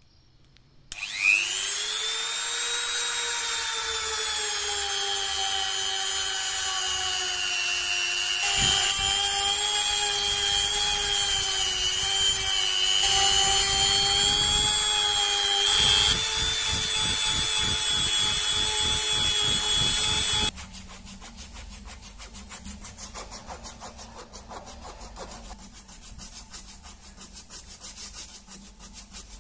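Handheld rotary tool with a small sanding drum spinning up about a second in to a steady high whine, grinding against a brass pommel from about 8 seconds. It stops suddenly near 20 seconds, giving way to a quieter, quick back-and-forth rasping of an abrasive cloth strip pulled around the pommel.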